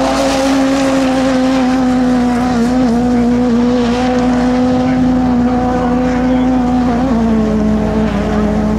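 Ford Fiesta rally car's engine held at high, steady revs as the car slides sideways across loose dirt, the pitch dropping slightly about seven seconds in.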